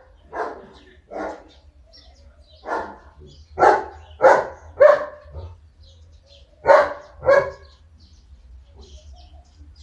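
A dog barking repeatedly: about eight short, sharp barks in clusters of two or three.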